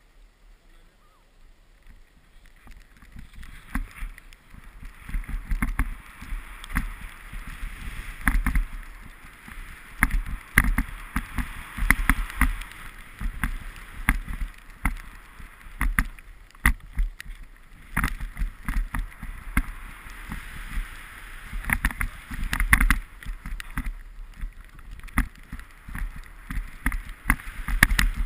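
Snowboard sliding and scraping over snow, a noisy hiss with frequent knocks and thumps as it rides over bumps, picked up by a body-mounted GoPro with wind on the microphone. Quiet at first, building about two seconds in as the rider sets off.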